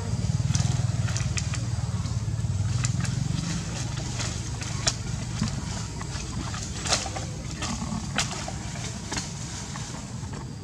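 Dry palm-leaf thatch crackling and clicking now and then as a macaque picks at it, over a steady low rumble.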